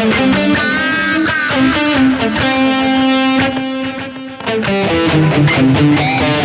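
Distorted electric guitar playing a lead line through a Boss GT-1000 high-gain preset with a longer delay switched on: bent notes, then one long held note in the middle, then quicker notes near the end.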